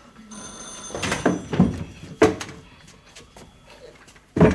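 A few knocks and thumps as a wall-mounted telephone's receiver is lifted and handled, with the loudest clunk near the end.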